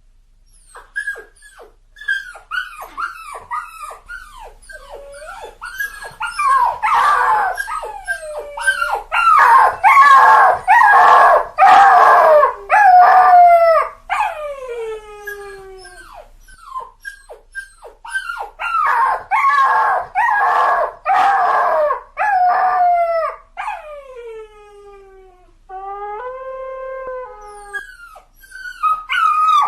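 A dog crying: a string of short, high-pitched whimpers that each fall in pitch. It swells twice into long, loud stretches of crowded cries and howls, and near the end gives one held, wavering cry.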